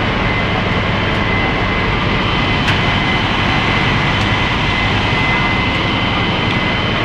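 Fire truck engines running steadily, a loud continuous drone with a constant high-pitched whine over it.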